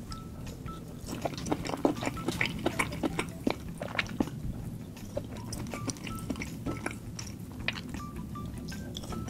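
Close-miked wet chewing and mouth clicks of someone eating sauce-dipped king crab meat. The clicks come thick and fast for the first few seconds, then thin out.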